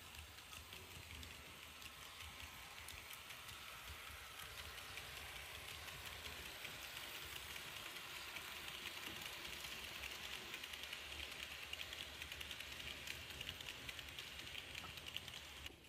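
Märklin model Ae 6/6 electric locomotive and its passenger coaches running along metal track, with a rapid, fine clicking and rattling of wheels over the rails and a low motor hum. It grows gradually louder as the train comes closer, then cuts off suddenly near the end.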